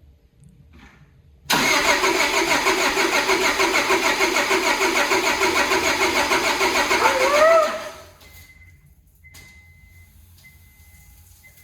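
2001 Honda Prelude's four-cylinder engine cranking over on the starter for about six seconds, with a brief rise in pitch near the end, then stopping without catching. The fuel lines are still empty on this first start after the rebuild, and fuel is leaking from a loose fuel rail.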